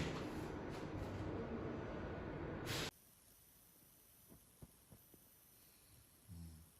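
Steady background hiss of workshop room noise that cuts off suddenly about three seconds in, leaving near silence broken by a few faint ticks and a short low thud near the end.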